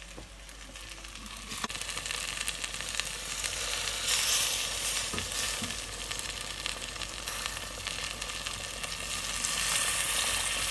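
Chicken and masala sizzling in a hot pan as boiling water is added and stirred in; the sizzle builds about a second in and carries on steadily with small clinks of the spoon.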